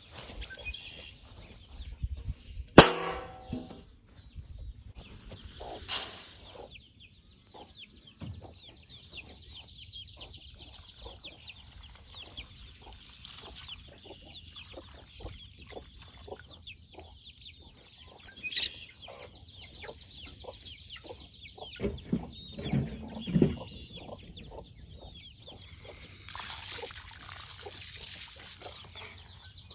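Chickens clucking, with scattered taps and clicks. There is one loud, sudden pitched call or knock about three seconds in, and a fast, high-pitched pulsing trill that comes and goes several times.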